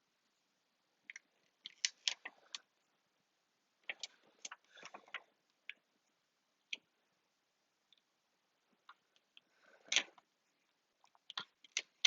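Small clicks, taps and crinkles of a plastic-backed adhesive seal being handled and pressed onto an iPhone 6s frame, in short clusters with the sharpest tap about ten seconds in.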